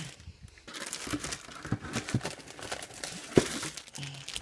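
Clear plastic bags of model-kit runners crinkling and rustling as they are handled, with a sharp knock about three and a half seconds in.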